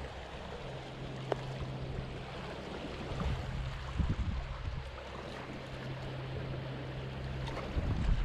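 Sea surf washing against a rocky shore, an even rushing noise that swells a few times, under a steady low hum.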